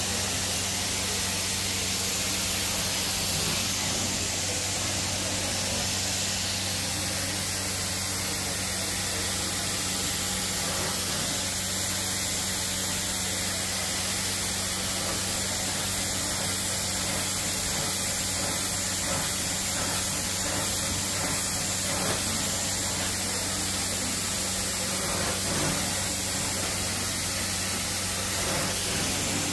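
Carpet-cleaning extraction wand working over carpet: a steady hiss of spray and vacuum suction, with a low steady hum from the extraction machine's motor beneath it.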